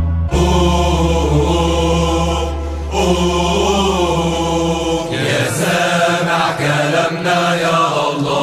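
Background music with chanted vocals over a steady low drone; the drone drops out about five seconds in.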